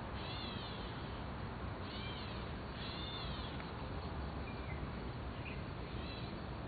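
A series of short, high animal calls, each rising then falling in pitch, repeating every second or so over a steady low rumble and hiss.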